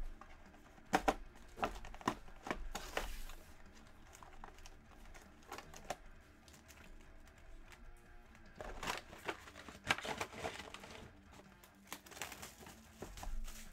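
Plastic shrink-wrap crinkling and crackling as it is torn off a trading-card hobby box and crumpled in the hand, in two spells about a second in and again around nine seconds in. Faint background music underneath.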